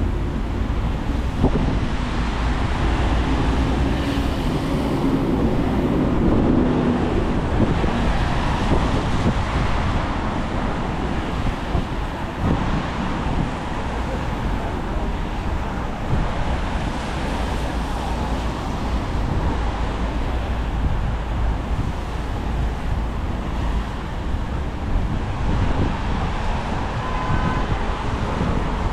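Steady city-street traffic noise: cars passing on a wet road with tyre hiss, and wind rumbling on the microphone.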